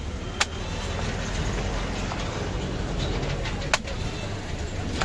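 Heavy cleaver chopping through a goat head onto a wooden chopping block: two sharp chops about three seconds apart, with a few lighter knocks between, over a steady low rumble.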